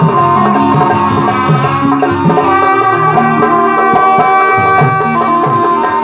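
Live saxophone melody of a Hindi song cover, with held notes moving step by step, over a hand-played barrel drum and keyboard accompaniment.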